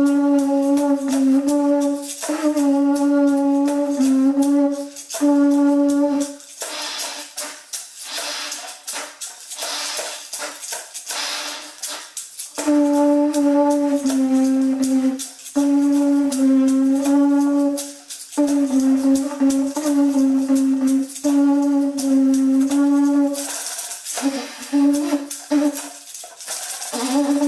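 Charonia variegata conch trumpet blown in long blasts on one steady note, each a second or two long, with short breaks between them. A rattle is shaken on its own for about six seconds in the middle, and again near the end.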